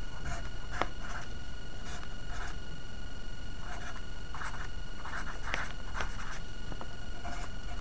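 Pencil scratching on paper in short irregular strokes as lines, a capacitor symbol and a few characters are drawn and written.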